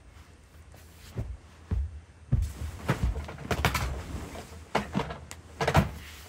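Scattered thumps, knocks and rustling of people moving about a room and handling their things, as they do when packing up to leave. The strokes come at uneven times, with a cluster in the middle and the loudest thump near the end.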